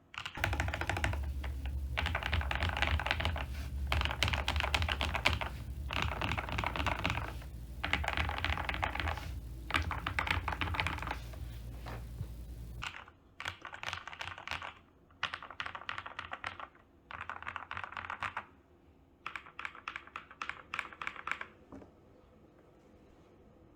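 Typing in runs of quick keystrokes on an MK870 mechanical keyboard with lubed and filmed Gateron Milky Yellow Pro linear switches, PBT keycaps, a polycarbonate plate and PE foam. The runs last a second or two with short pauses between them, and the typing stops about two seconds before the end. A steady low hum underneath cuts off about halfway through.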